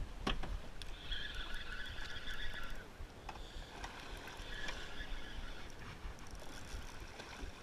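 Steady low rumble of wind and water around a small fishing boat, with scattered short clicks. A faint high whir comes in twice.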